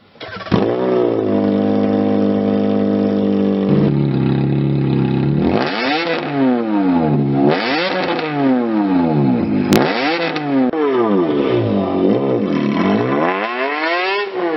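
BMW E46 330i straight-six engine starting about half a second in and settling into a steady idle, then revved repeatedly, its pitch rising and falling with each blip.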